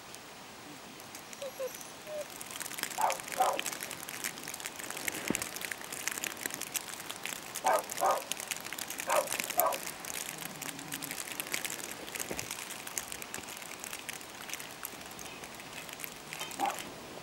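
A hunting dog barking in short doubled barks, a few times, over a steady crackle of small clicks.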